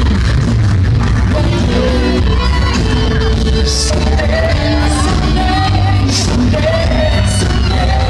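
Live rock band playing, with electric guitars, bass, drums and keyboards under a male lead singer, heard loud and full from within the audience.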